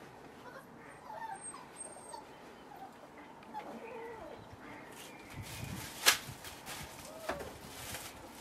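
Young puppies whimpering and yipping in short, high squeaks scattered through the stretch. A sharp knock about six seconds in is the loudest sound, with a lighter one about a second later.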